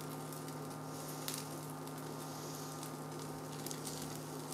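Byrek frying gently in a nonstick pan, a faint steady sizzle over the constant electric hum of the induction cooktop, with a couple of light taps of the spatula.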